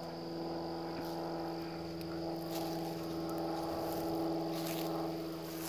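Steady machine hum holding one pitch, with a few faint clicks.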